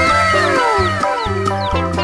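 Bouncy children's background music with a steady beat; early on, a sound with several stacked pitches slides downward for about a second and a half.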